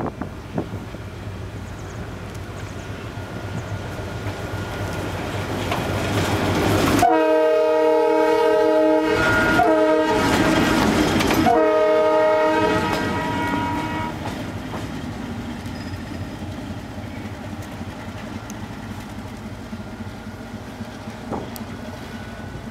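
A DF7G diesel-electric shunting locomotive approaches with its diesel engine running. About seven seconds in, as it comes close, it sounds its horn in three long blasts, the last fading away about seven seconds after the first began. The locomotive's running gear then rumbles past.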